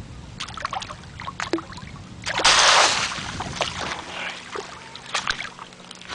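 Water splashing and sloshing in the shallows as a stranded Humboldt squid thrashes and turns itself over. There are many small splashes and drips, and one louder rushing splash about two and a half seconds in.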